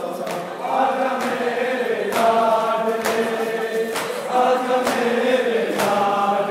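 Men's voices chanting a Shia mourning noha together in long held lines, with sharp chest-beating strikes (matam) keeping time about once a second.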